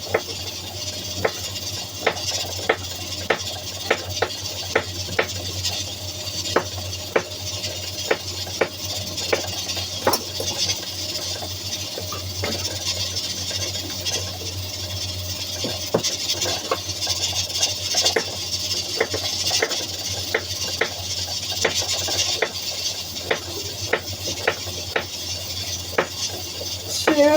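Kitchen knife slicing a zucchini thinly on a cutting board: a regular series of sharp taps, about two a second, over a steady background hiss.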